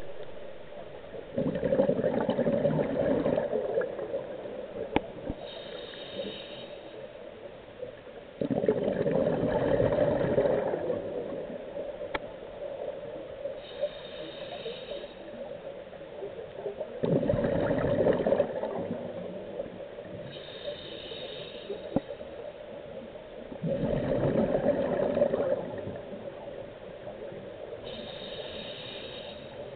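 Scuba diver breathing through a regulator underwater: a short hiss with each inhale, then a loud rush of exhaust bubbles with each exhale, four breaths about seven seconds apart.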